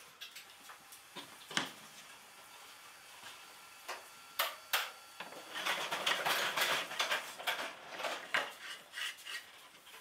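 Wooden pieces knocking together, with a few separate sharp knocks. About halfway through comes a few seconds of dense scraping and clattering as a round wooden disc is set and shifted on the base of a wooden tree-shaped stand.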